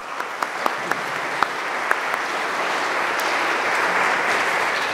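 Audience applauding: a few scattered claps at first, thickening into steady applause that grows louder and begins to die away near the end.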